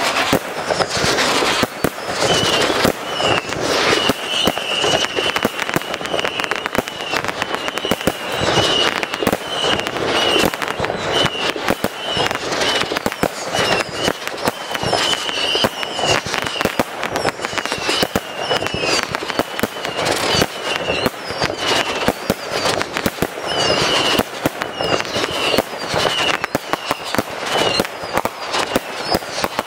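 Fireworks display: a dense, continuous run of bangs and crackling, with a high whistle coming and going throughout.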